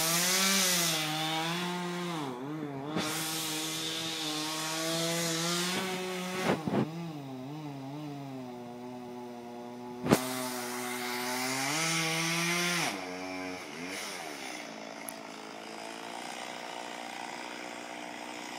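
Two-stroke chainsaw running high up in a tree, its engine pitch sagging and recovering as it cuts into the trunk, with a few sharp knocks and one loud crack about ten seconds in. About thirteen seconds in the saw drops back to a lower, quieter idle.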